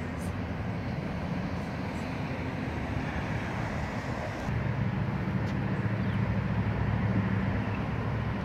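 Steady low mechanical hum over outdoor background noise, growing louder about four and a half seconds in.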